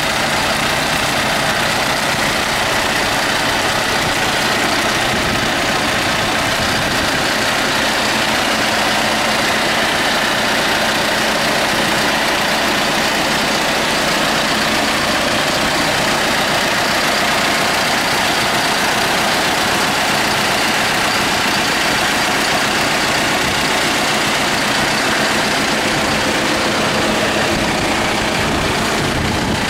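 John Deere 5125ML tractor's diesel engine idling steadily.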